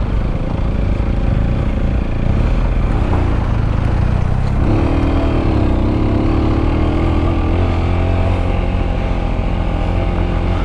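Sinnis Terrain 125's single-cylinder 125 cc engine running hard under load on a steep off-road climb. Its note rises and dips from about halfway through.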